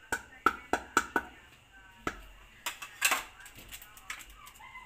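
Quick sharp taps and clicks of a plastic packet and a plastic food container being handled while paprika is added to breading mix: five fast taps in the first second and a half, then a few more, spaced out.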